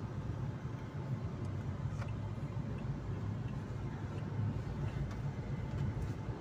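A car driving at motorway speed, heard from inside the cabin: a steady low rumble of engine and tyre noise.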